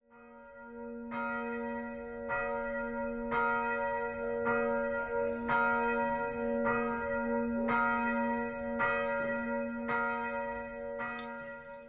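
A single church bell tolling, struck about once a second, each stroke ringing on into the next.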